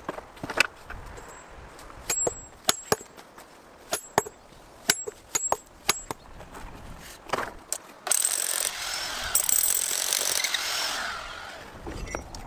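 Hammer blows on hardened steel wedges driven into volcanic rock: a string of sharp, irregular metallic strikes, some with a brief high ring. About eight seconds in, a rushing, scraping noise takes over for roughly three seconds, then a few softer knocks.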